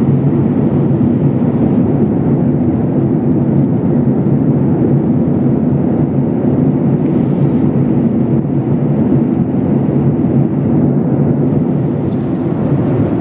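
Steady, loud cabin noise inside a Boeing 737 airliner: the even drone of the jet engines and airflow heard from a passenger seat.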